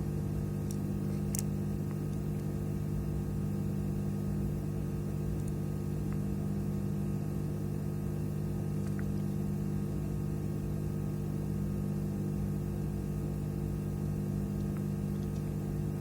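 Steady electrical hum with a low drone, several fixed tones held throughout, and a couple of faint clicks about a second in.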